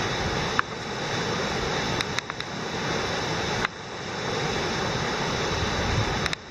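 Muddy flash-flood water rushing steadily down a desert wash, with a few small clicks about two seconds in.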